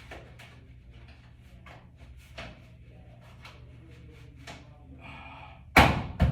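Work noises from handling installation parts: scattered light clicks and taps, a brief scraping rustle about five seconds in, then two sharp, loud knocks near the end.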